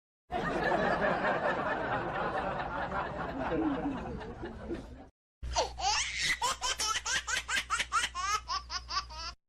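Laughing sound effects: several seconds of dense group laughter, a short break, then a single rhythmic laugh of about four bursts a second over a low hum.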